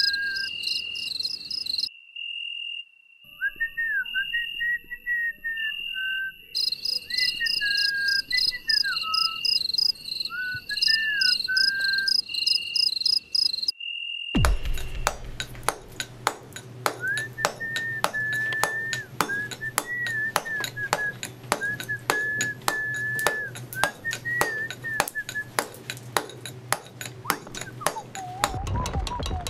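Edited background soundtrack. The first half has rapid, evenly repeated insect-like chirping under a gliding, whistle-like melody, with a short dropout early on. About halfway through it cuts abruptly to music with a fast, even ticking beat, a low steady hum and a high, held, wavering melody line.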